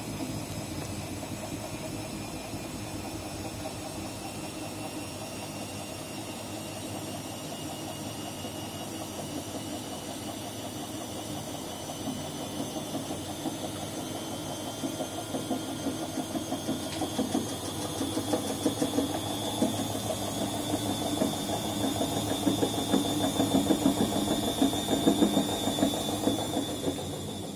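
Washing machine speeding up its drum on spin, the motor's whine rising slowly in pitch. Knocking and rattling grow louder and more frequent from about halfway through: a rattle inside the machine.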